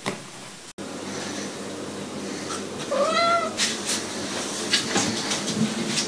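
A domestic cat meows once, a short call that rises and falls in pitch about halfway through, followed by a few sharp knocks.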